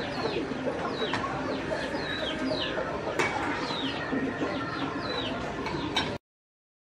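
Chickens clucking with birds chirping, short falling chirps repeating about two or three times a second, and a single sharp click about three seconds in. The sound cuts off suddenly about six seconds in.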